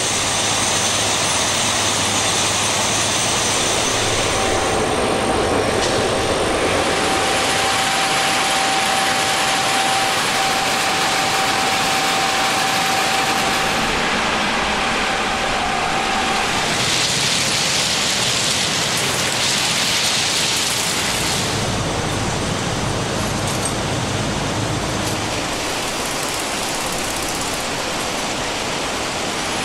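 RU 800 S track renewal train at work, its heavy machinery running as a loud, dense, steady mechanical din. A thin steady whine runs through it from about four seconds in until past the middle, and the hiss grows brighter for a few seconds after that.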